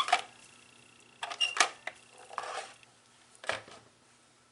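Adhesive being applied to a thick, three-layer cardstock die cut: a few short clicks and scrapes of the adhesive applicator and paper being handled.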